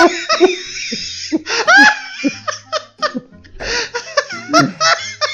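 Two men laughing together in repeated bursts.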